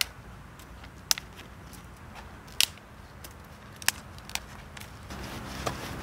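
Sharp, scattered clicks and knocks of dry wooden sticks being handled and set into the ground, about six in all, the loudest coming singly a second or so apart. A steady rustling hiss rises near the end.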